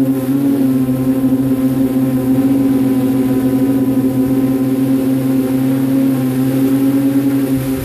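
Drone's electric motors and propellers humming at a steady pitch in flight, heard from on board.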